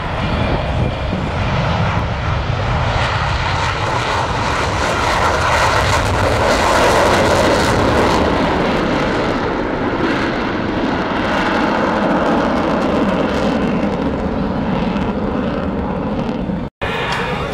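Fighter jet engines in a low flyby: a loud, steady rush that swells to its loudest about halfway through, then eases as the jet pulls away. The sound cuts out for an instant near the end.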